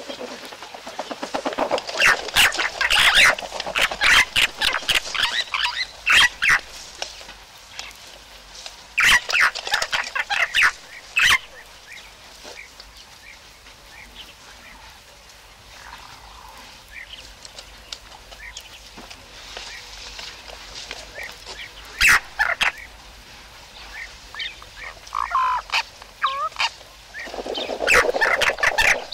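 Bird calls: several bursts of rapid, rattling cackles, a second or two each, with quieter stretches between.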